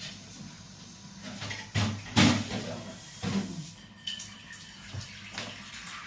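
Dishes and utensils being washed at a kitchen sink: water running from the tap, with a string of clattering knocks as pieces are handled, the loudest about two seconds in. A steady low hum runs underneath.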